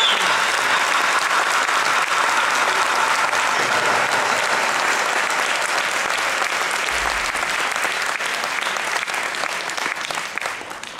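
Audience applauding, slowly fading away near the end.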